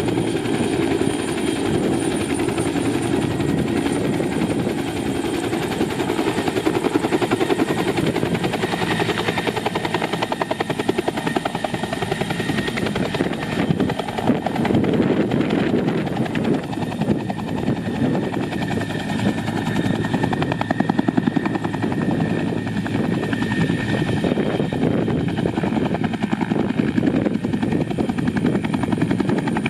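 Helicopter running close by, its rotor beating steadily in a fast chop, with a thin high whine above.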